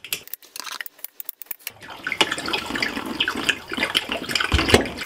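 A few sharp clicks from the PEX cutters closing on the pipe, then residual water running and splashing out of the freshly cut PEX water line, its supply shut off. A single thump near the end.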